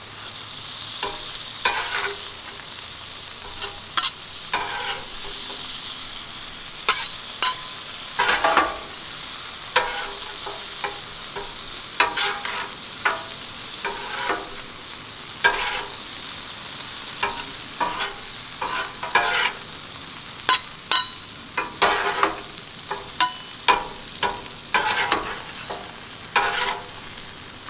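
Frozen onions and bell peppers sizzling on a hot Blackstone flat-top griddle, with a metal spatula repeatedly scraping and clacking on the steel cooktop as the vegetables are stirred and turned.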